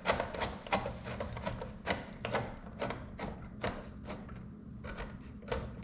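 Light scraping clicks, about two or three a second, as a rivet nut is screwed by hand onto the threaded mandrel of a hand nutsert (rivet-nut) tool; the clicks thin out in the second half.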